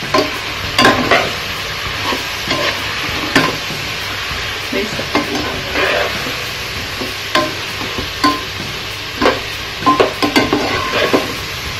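Metal spatula stirring and scraping moringa pods and tomatoes in a hot pot, with irregular clinks and scrapes against the pot over a steady sizzle of frying.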